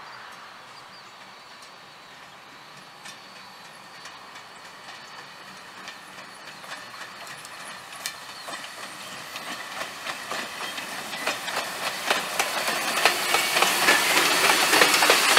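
Steam locomotive and boxcar rolling slowly closer: wheel clicks and clatter on the rails grow steadily louder as the train nears and draws alongside, over a faint steady hiss.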